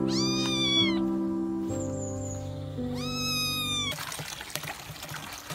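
A rescued, soaking-wet kitten mewing twice, in high, long, arching cries over steady background music. About four seconds in this gives way to water splashing from a running tap into a plastic basin.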